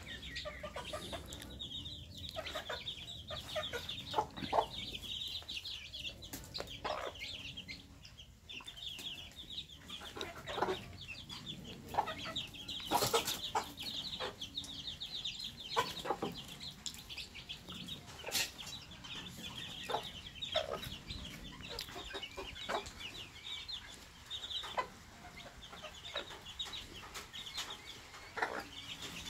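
A brood of chicks peeping rapidly and continuously in high, short notes, with a hen clucking now and then and a few sharp knocks.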